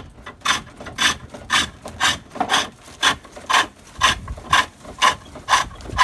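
Turning tool cutting a fresh ash spindle on a treadle-driven pole lathe: a rhythmic scraping cut with each press of the treadle, about two strokes a second.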